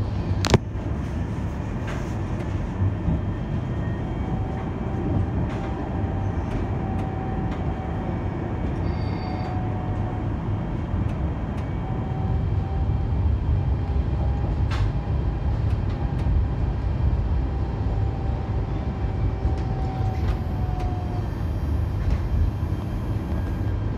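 Alstom Citadis Dualis tram-train running along the line between stops: a steady low rumble of wheels on rail, with a faint whine that comes in a few seconds in and fades near the end. There is a sharp click about half a second in and a few lighter clicks later.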